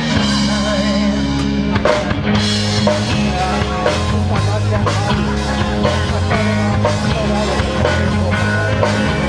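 Live rock band playing an instrumental passage between sung lines: drum kit, bass and electric guitar, loud and steady.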